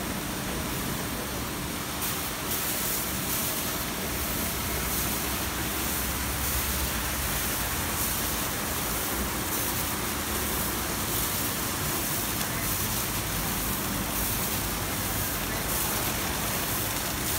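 Kärcher CBC rollover car wash in its brush stage: the rotating foam brushes swish against a car while water sprays over it, a steady rushing hiss that grows louder about two seconds in, with a faint steady machine hum underneath.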